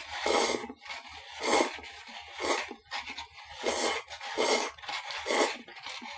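A man slurping instant cup noodles with chopsticks, in about six short slurps roughly one a second.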